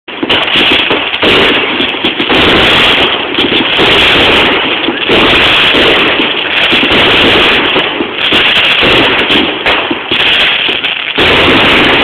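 Fireworks display going off in quick succession: loud, near-continuous bangs and crackle with hardly a gap.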